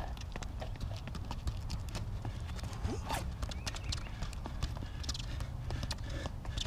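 Quick, irregular taps of a soccer ball being dribbled in tight touches, mixed with sneaker footsteps scuffing on asphalt, over a low steady rumble.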